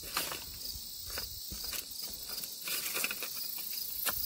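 Steady insect chirping, with scattered clicks and rustles of small items being handled.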